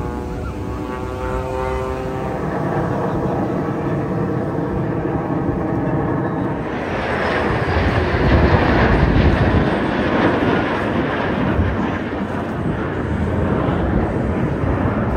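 Jet aircraft engines of two aerobatic jets flying overhead in formation. First a whine that falls slightly in pitch, then a loud jet roar that swells from about seven seconds in and keeps going.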